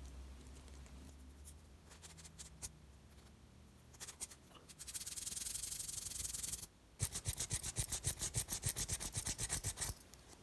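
Rubbing and scrubbing a Leatherman Squirt multi-tool's metal with Ballistol: a few faint ticks, a steady hiss of about two seconds in the middle, then fast back-and-forth scrubbing strokes, about nine a second, for the last three seconds.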